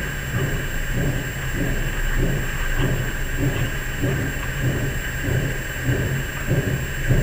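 Low, rumbling drone that throbs unevenly about twice a second, over a steady background hiss: the unexplained 'strange sound' heard at night.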